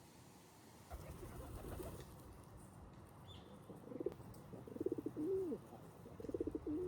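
A pigeon cooing: three cooing phrases in the second half, over a low background rumble.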